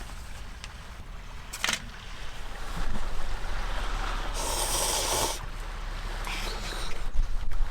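Sea waves washing on the beach, with a louder rush of surf about four to five seconds in and a single sharp click near two seconds.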